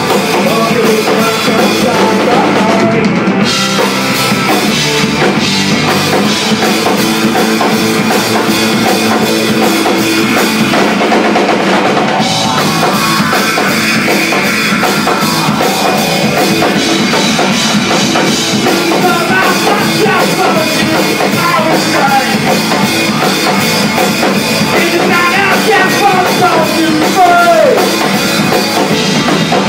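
Live rock band playing loud: electric guitar and drum kit, with the singer's voice coming through at times.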